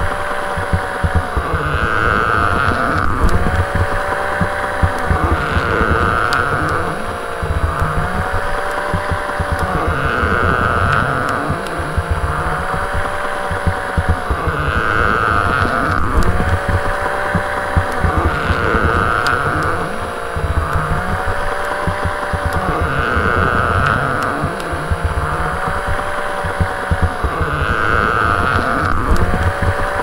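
Motorized toy baby doll moving: its small motor whines, rising and falling in pitch, with plastic creaking, in a cycle that repeats about every four seconds over a steady low rumble.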